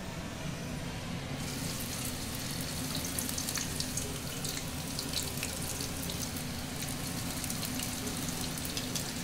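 Sweet potato strips dropped into hot oil in a stainless steel pan: about a second and a half in the oil starts sizzling and crackling, and it keeps going, over a steady low hum.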